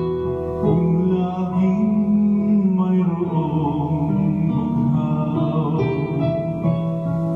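A man singing a ballad into a handheld microphone over recorded backing music.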